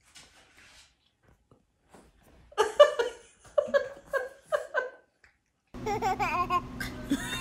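High-pitched laughter: a run of about six short ha-ha pulses in the middle. Near the end a steady low hum with background room noise comes in.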